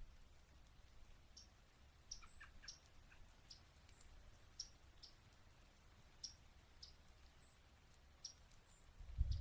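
Faint, short, sharp chip notes of yellow-rumped warblers, repeated irregularly about once a second, with a few lower bird notes a couple of seconds in. A low rumble comes in near the end.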